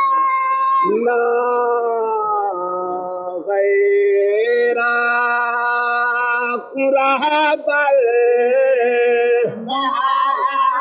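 A man's voice chanting in long held, slightly wavering notes, stepping to a new pitch every second or two with brief breaks for breath: the melodic recitation of a masaib lament or qasida for Imam Hussain.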